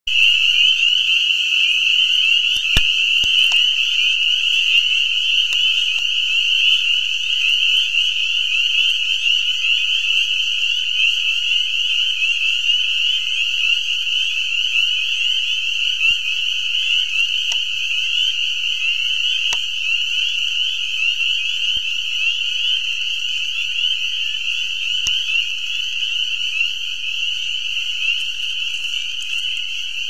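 Full chorus of spring peepers: many frogs calling at once in a steady, high-pitched wall of overlapping peeps. A few faint clicks are heard here and there.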